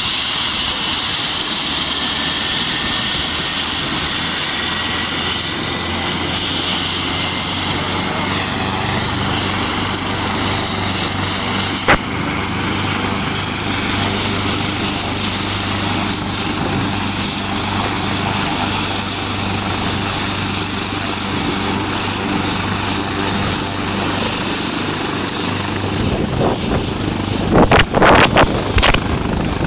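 Helicopter running on the ground before takeoff: a steady, high turbine whine over a low hum, with a single click about twelve seconds in. In the last few seconds the whine rises in pitch as the rotor speeds up, and gusts of rotor wash buffet the microphone.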